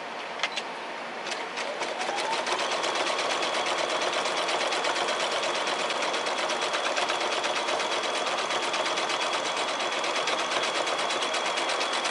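Domestic sewing machine stitching through a quilt block: a couple of clicks, then the motor speeds up about two seconds in and runs at a steady rapid needle rate with an even ticking and a constant whine.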